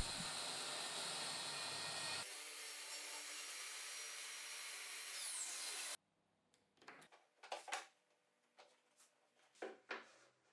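Bosch plunge circular saw running along its aluminium guide rail, cutting a groove about 2 mm deep in the wooden benchtop; a high whine falls in pitch just before the sound stops about six seconds in. Then a few short scrapes and taps as wooden strips are handled on the bench.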